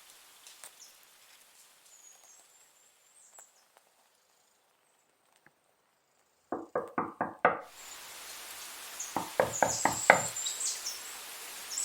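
Added sound effects of quick knocks that fall in two short runs of five or six strokes, about five a second, the first about six and a half seconds in. Faint high chirping sits behind them.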